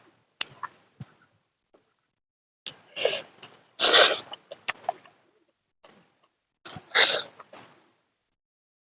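Close-miked mouth noises of a person eating spicy curry: three short, sharp bursts of breath about three, four and seven seconds in, with a few small clicks near the start.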